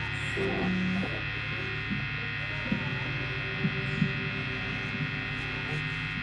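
Steady electrical mains hum from the stage amplifiers and PA, with faint crowd chatter and a few small clicks.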